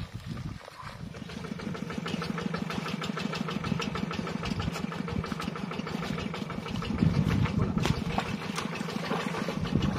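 A small engine running steadily with a fast, regular pulse. It comes in about a second in and gets louder near the end. This is the engine of the vehicle that drags the trawl net through the pond.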